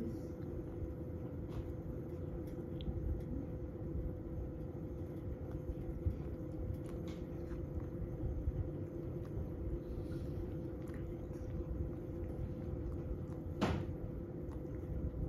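Steady low electrical hum in a room, with a few faint clicks and one sharper click near the end.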